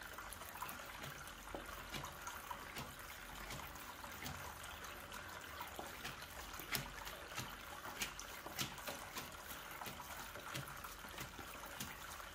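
Tabletop rock fountain trickling steadily, with scattered light clicks and taps as tarot cards are laid down on the table one after another.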